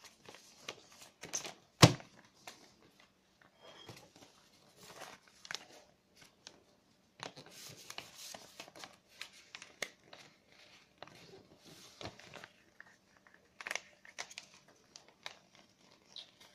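A sheet of paper being folded and creased by hand: irregular crinkling and rustling, with one sharp knock about two seconds in.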